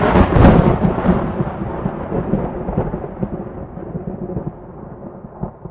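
A thunderclap followed by a long rolling rumble of thunder that slowly fades away.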